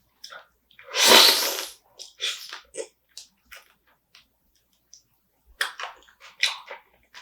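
Close-up mouth sounds of eating spicy marinated raw crab: crunching, sucking and chewing on the shell in short clicks and squishes, with one loud rush of noise lasting under a second about a second in.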